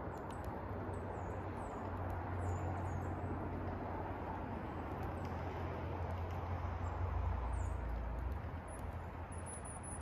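Short, faint high chirps and whistles of small songbirds, scattered throughout, with a longer high whistle near the end, over a steady low rumble and hiss.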